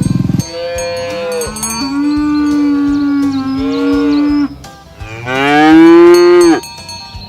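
Cows mooing: two long moos, the second shorter and louder. A loud low buzz stops about half a second in.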